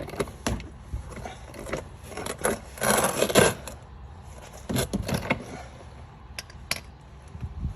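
Clinks, clicks and metallic scraping of a hand tool at work under a car, an oil-filter wrench being fitted and turned to loosen the oil filter. A louder, longer scrape comes about three seconds in, with another cluster of clinks near five seconds.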